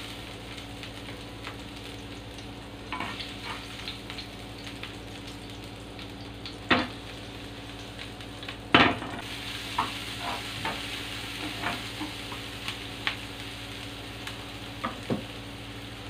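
Chopped aromatics frying in oil in a nonstick pan, a steady sizzle as a spatula stirs and scrapes them. Scattered sharp knocks of spatula and pan, the two loudest near the middle.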